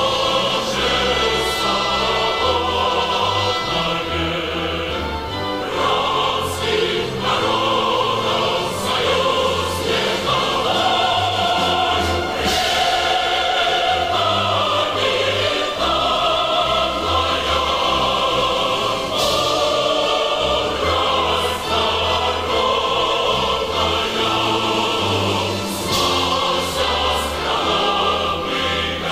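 Background choral music: a choir singing sustained notes over instrumental accompaniment with a steady bass.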